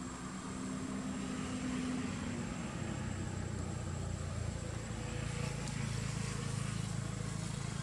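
Low engine hum of a motor vehicle running steadily in the background. Its pitch drops about two and a half seconds in and then holds.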